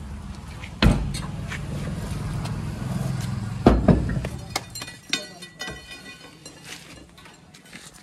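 JCB 3DX backhoe loader's diesel engine running under load, with two heavy thuds, about a second in and again near four seconds, as loads of mud hit the truck's tipper body. The engine note drops away after about four and a half seconds, leaving small clinks and ticks.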